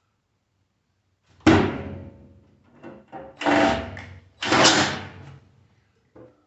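The gutted microwave's sheet-metal casing being closed back up: three loud metallic bangs, each dying away with a short ring, with a couple of lighter knocks between and after.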